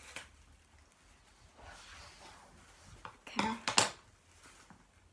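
Rustling and handling of a small gift-wrapped advent calendar package being cut open and unwrapped, with a few sharp clicks and a brief voice sound about three and a half seconds in.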